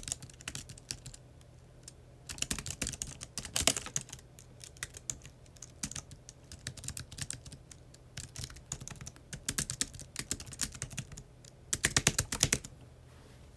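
Typing on a computer keyboard in runs of fast keystrokes with short pauses between them. The loudest, quickest flurry comes near the end, then the typing stops.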